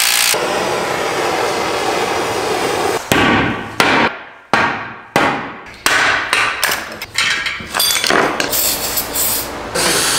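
A cordless impact wrench runs for about three seconds, then a run of hammer blows on a steel punch and the steel subframe, each ringing briefly as it dies away. A power drill runs briefly near the end. Together these are the sounds of stubborn rear subframe bushings on a BMW E46 M3 being pressed and driven out of the subframe.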